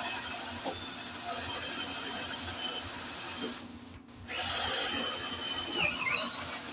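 Cordless drill boring through a wooden wall stud, running steadily, stopping briefly about halfway through, then drilling again.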